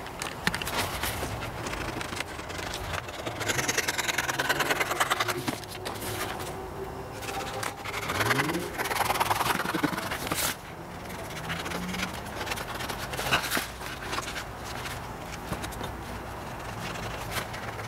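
Scissors cutting through a large sheet of paper along a traced outline, with the paper rustling and scraping as it is handled.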